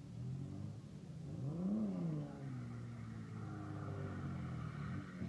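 Rear-wheel-drive Opel Corsa A with a C30SE 3.0-litre 24-valve straight-six doing a burnout. The engine revs up sharply and drops back about a second and a half in, then holds steady high revs, with the rear tyres squealing as they spin.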